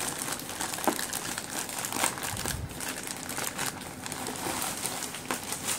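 Plastic courier mailer bag crinkling and rustling as hands pull it open and reach inside, with scattered sharp crackles.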